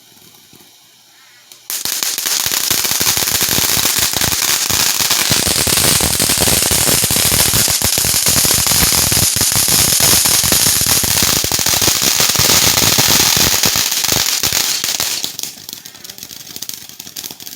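Consumer fireworks going off: after a short quiet, a sudden loud, dense run of rapid small bangs and crackles starts about two seconds in and goes on for about thirteen seconds, then dies down near the end.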